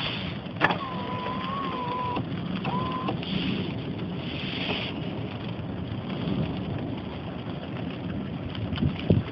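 Steady rain and wind noise in a thunderstorm, with a sharp click about half a second in and a thin wavering whistle-like tone held for about a second and a half, then once more briefly.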